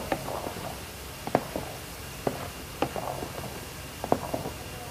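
Wooden spatula stirring thick chocolate soufflé batter in a large stainless steel bowl: soft scraping through the batter with a handful of sharp taps at irregular intervals as the spatula knocks against the bowl.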